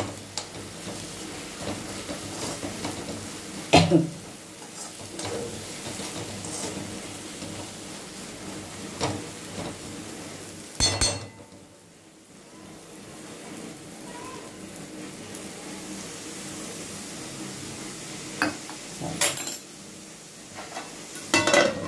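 Red sorrel leaves frying in oil in a non-stick kadai with a steady low sizzle, stirred and scraped with a spatula, with a few sharp knocks of the spatula against the pan.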